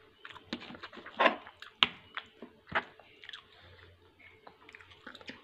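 Someone eating fried cauliflower rice: quiet chewing, with a few sharp clicks of a metal spoon and fork against the plate, the loudest a little under two seconds in.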